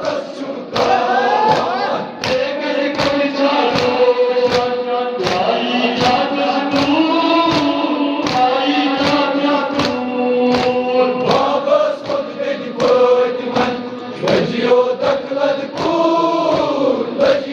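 A crowd of men chanting a Kashmiri noha (Shia lament) together, with group chest-beating (matam) striking about twice a second in time with the chant.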